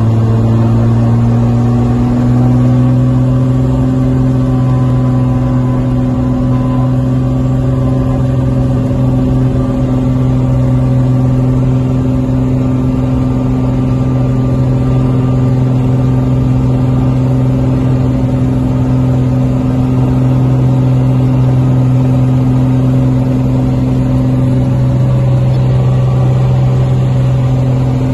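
Piper Turbo Arrow IV's turbocharged six-cylinder Continental engine and propeller running loud and steady, heard from inside the cockpit on the runway, with a slight rise in pitch in the first couple of seconds.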